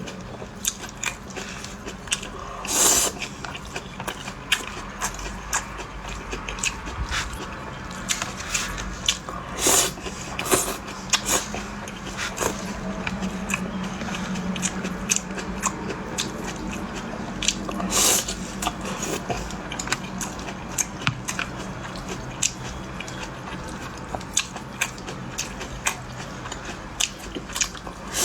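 Close-miked eating: a person chewing and biting food with many small wet clicks and smacks, broken by three louder bursts. A faint steady hum runs underneath.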